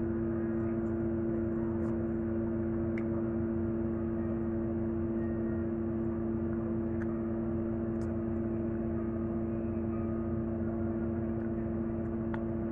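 Window air conditioner running with a steady two-tone hum over a low drone, with a few faint clicks.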